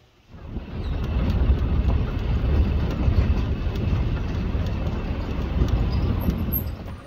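Safari jeep driving: a steady engine and road rumble that comes in suddenly about a third of a second in, with faint rattles over it.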